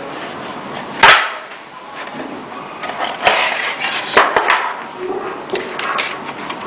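Sharp clicks and knocks of a DVD drive's sheet-metal casing and plastic parts being handled as its top cover is fitted, the loudest a single snap about a second in, followed by a few smaller clicks.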